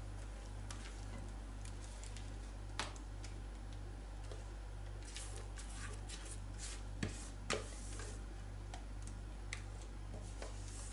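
A spatula scraping thick cake batter out of a metal mixing bowl, with a few light clicks of the spatula against the bowl: one about three seconds in and two close together past the middle. A steady low electrical hum lies under it.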